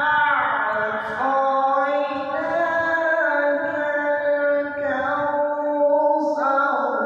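Man reciting the Quran in a melodic tajweed style, holding long drawn-out notes that slide and step between pitches.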